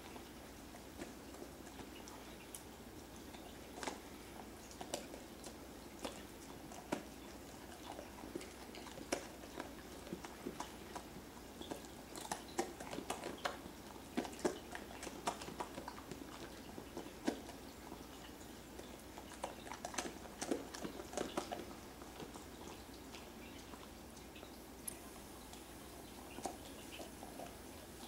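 Alaskan malamute chewing a hard baked dog treat: irregular crunching bites, busiest through the middle.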